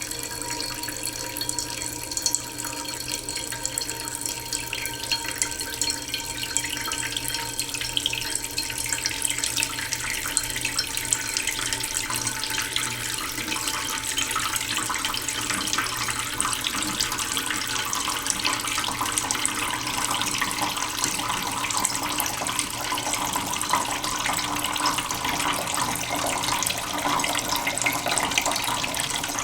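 Tap water running slowly into a cooking pot in a sink, a steady splashing stream that grows gradually louder as the pot fills.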